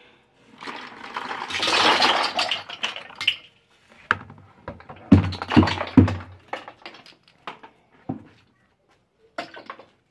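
Plastic bottle caps poured from a plastic bucket into a plastic drum: a dense clattering rush for about three seconds, then a few sharp knocks with low thumps, then scattered clicks as the last caps drop.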